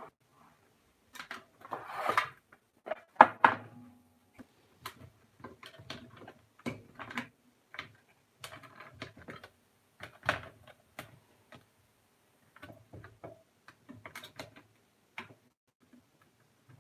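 Rolls of washi tape being handled and set into a clear plastic organizer box: irregular clicks, knocks and short scuffs, with the loudest knocks about two to three seconds in.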